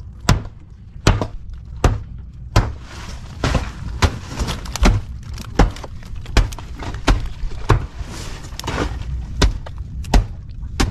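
Freshly caught hilsa being handled in a plastic fish crate on a wooden boat: a string of sharp slaps and knocks, roughly one or two a second, over a low steady rumble.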